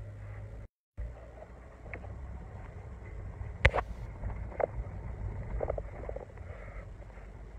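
Low, steady rumble of a car's engine and road noise heard from inside the moving car's cabin. The sound cuts out completely for a moment near the start, and a single sharp click is heard about halfway through.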